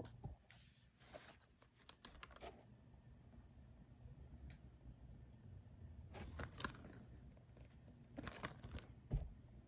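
Hands handling a shrink-wrapped plastic Blu-ray case, quiet throughout: scattered clicks and crinkles from the case and its wrap, in a few clusters, with a single thump just after nine seconds.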